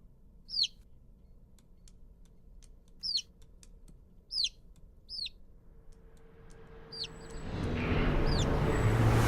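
A small bird chirping: about six short, high chirps, each falling in pitch, spaced a second or more apart over faint ticking. From about six seconds in, a rushing noise swells steadily louder, and a low hum joins it near the end.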